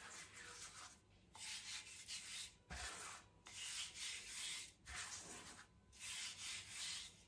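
Hands rubbing flour along a wooden rolling pin: a faint, dry hiss in about six strokes, roughly one a second.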